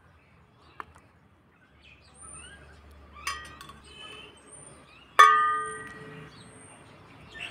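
Metal ladle striking a metal cooking pot while serving curry: a light clink about three seconds in, then a loud ring about five seconds in that rings on for over a second. Birds chirp faintly in the background.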